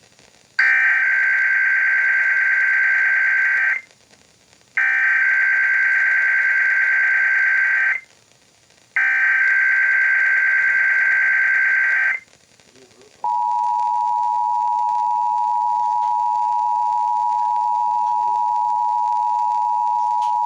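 Emergency Alert System header on the radio: three bursts of SAME digital data tones, each a harsh two-tone buzzing squawk about three seconds long with a second's gap between them. Then comes the steady EAS two-tone attention signal, 853 and 960 Hz sounding together, marking the start of a Required Weekly Test alert.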